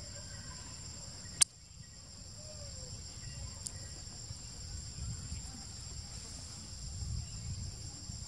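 Steady high-pitched insect chorus, crickets or cicadas, over a low rumble. A single loud, sharp click about a second and a half in, with a much fainter click a couple of seconds later.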